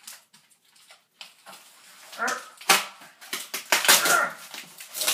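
Packing tape and cardboard being ripped open by hand: a run of loud, scratchy tearing rasps that start about a second in and come thicker and louder through the second half.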